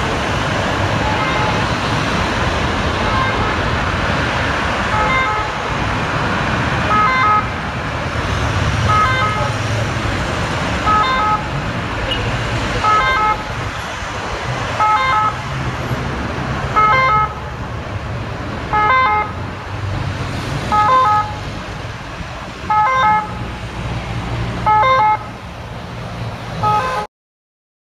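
French ambulance three-tone siren sounding in short repeated phrases about every two seconds over steady, dense motorway traffic noise. It stops abruptly near the end.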